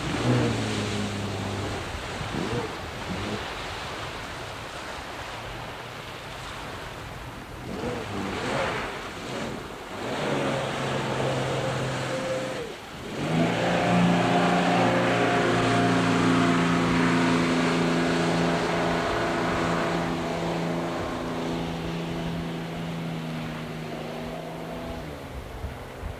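Jetboat engines revving over the rush of water, the pitch swinging up and down. About thirteen seconds in, one engine surges up and holds a steady note for several seconds before fading away.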